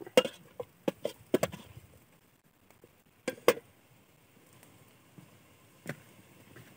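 Metal ladle knocking against a metal cooking pot while stirring: a few sharp clinks in the first second and a half, two more about three and a half seconds in, and one near the end.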